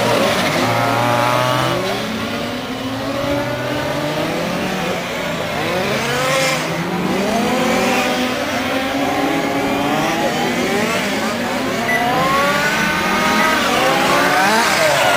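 Several radio-controlled racing cars' small combustion engines revving up and dropping back as they accelerate and slow around the track. Their high-pitched whines rise and fall and overlap the whole time.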